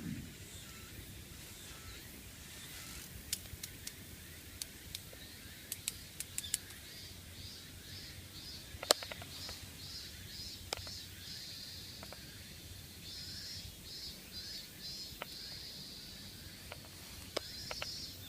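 An insect calling in a regular high-pitched pulsing rhythm, about two chirps a second, starting about halfway through, over a faint outdoor background. Scattered sharp clicks and snaps run throughout; the loudest comes about nine seconds in.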